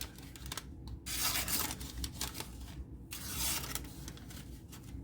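Hollow-ground blade of a Camillus folding knife slicing through a paper receipt: several hissing, scratchy cuts with short pauses between them.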